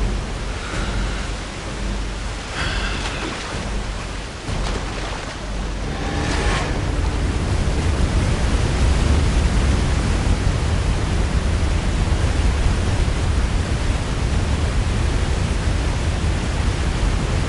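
Steady rushing roar of a large waterfall and river rapids, growing louder and deeper about six seconds in. A few short cries sound over it during the first half.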